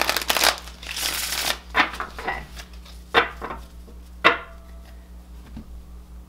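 Tarot deck being shuffled by hand: two rustling bursts of cards sliding through each other in the first second and a half. Then a few separate sharp taps and flicks as the deck is squared and cards are laid on the table, dying away after about four and a half seconds.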